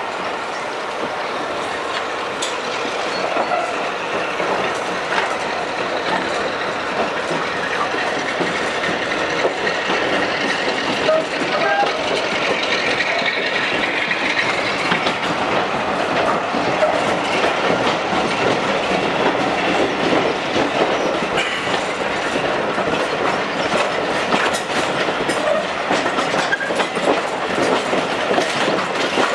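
Heritage passenger train carriage rolling out of a station and gathering speed, its wheels clicking over the rail joints, heard from a carriage window. The running noise grows louder over the first several seconds.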